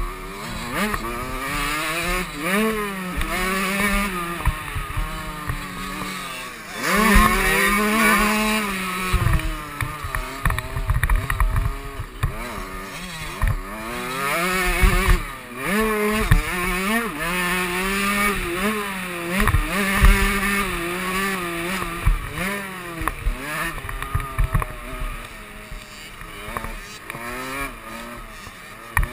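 KTM 65 two-stroke motocross engine being raced, heard from the rider's helmet: its pitch climbs through each gear and drops again on the shifts and off the throttle, over and over. Short low thumps come through from the rough track.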